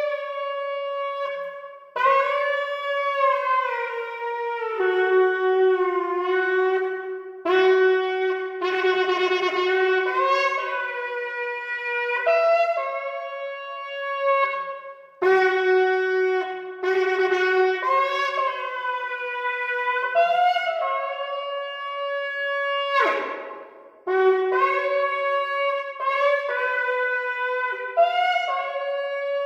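A 36-inch shofar blown in long held blasts, stepping up and down between two or three notes, with short breaks between phrases. About 23 seconds in, one blast slides steeply down in pitch and breaks off before the blowing resumes.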